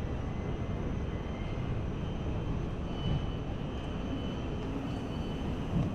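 Steady low rumble of a Thameslink train drawing into an underground station platform, with a faint thin squeal of wheels or brakes about halfway through.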